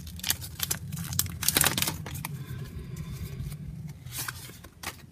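Foil Pokémon booster-pack wrapper crinkling and trading cards rustling and clicking as they are pulled out and shuffled by hand, a quick run of crackles that thins out after about two seconds.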